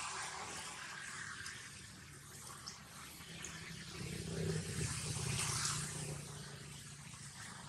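Faint outdoor background noise with a low engine hum that swells about four seconds in and fades again near the end.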